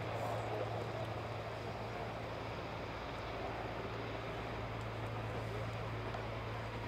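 North American SNJ-3 Texan's Pratt & Whitney R-1340 Wasp radial engine and propeller at takeoff power during lift-off, a steady drone with a constant low hum.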